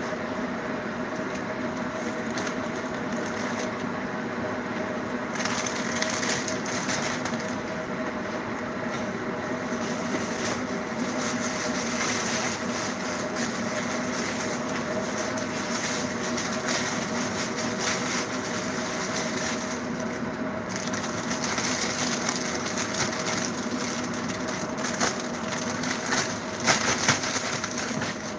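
Plastic bread bag crinkling and rustling as it is handled, over a steady low hum, with a few louder crackles near the end.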